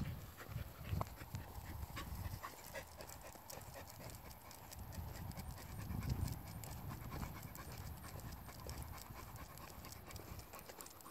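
A large dog panting as it trots alongside, with the walker's footsteps on the pavement.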